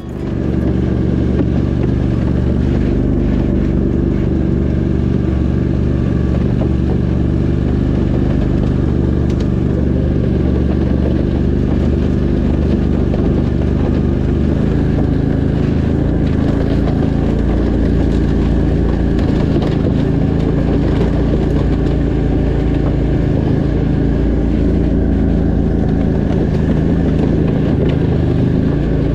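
Argo amphibious ATV's engine running steadily at an even pace under way, heard from the driver's seat.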